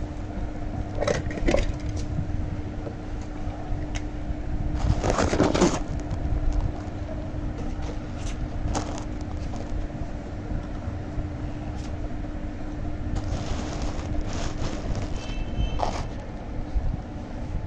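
Battery-powered toy dinosaur's small motor and gears running with a steady hum. Several sharp clicks and knocks come from the plastic toy being handled and moved on the floor, with a cluster about five seconds in.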